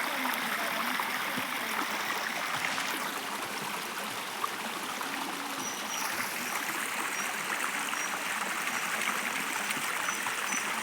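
Stream water running steadily, a constant rushing and trickling. A few faint short high chirps sound in the second half.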